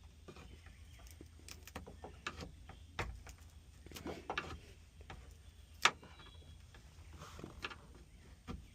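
Factory sound deadening mat being scraped and pried off a car's sheet-metal body by hand: scattered scrapes and light knocks, with one sharper click about six seconds in.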